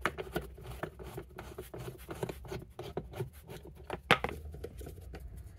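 Screwdriver with a T20 Torx bit unscrewing a screw from a plastic car trim panel: a run of small clicks and scraping as the screw turns out. A sharper click comes about four seconds in.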